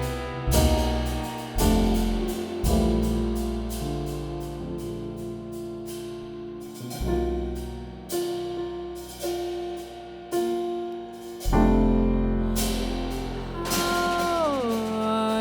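Jazz piano trio playing a slow ballad passage: piano chords struck about once a second and left to ring, with double bass and light drums. Near the end a held note glides downward.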